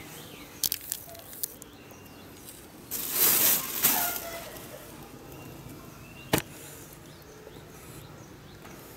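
Granular fertilizer pellets scattered by hand onto the soil of a plant pot: a few light clicks of pellets falling, then a burst of about a second as the handful lands, about three seconds in, and one more click a few seconds later.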